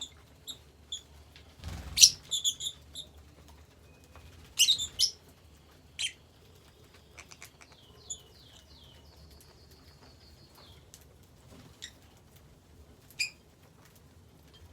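Lovebirds giving scattered sharp chirps and squeaks, the loudest about two seconds in. Midway comes a quick run of short falling chirps, then a thin held whistle-like note.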